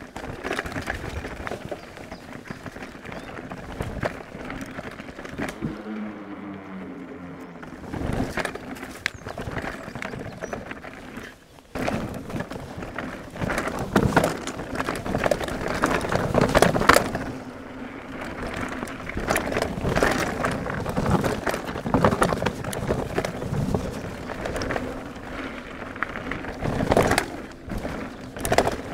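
Specialized Enduro mountain bike riding down a natural singletrack over scree, roots and small steps: continuous tyre rolling noise over loose stones, broken by many knocks and rattles from the bike as it hits the bumps.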